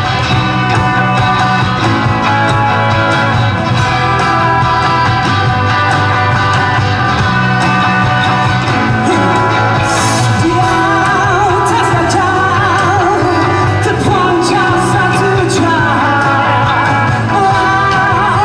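Live indie rock band playing, with steady guitar chords and drums. A cymbal crash comes about ten seconds in, and a singer's wavering vocal line comes in with it and carries on.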